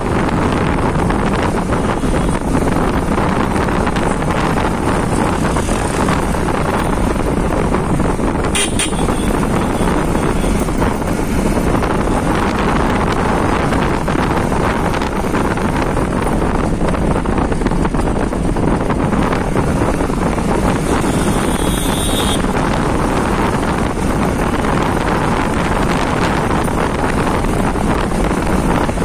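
Steady rush of wind on the microphone of a moving motorcycle, mixed with its engine and road noise.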